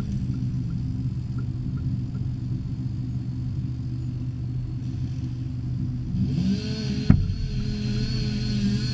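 A winch-rig engine runs steadily with a low hum. About six seconds in, a higher wavering whine joins it, and a sharp knock follows about a second later.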